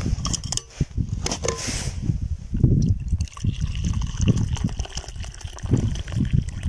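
A few clicks and knocks, then, about halfway through, hot drink poured in a steady trickle from a stainless-steel vacuum flask into its metal cup, over a low rumble.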